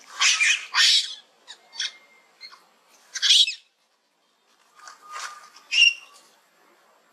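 Young macaques squealing while they wrestle and play: a handful of short, high squeals with pauses between them.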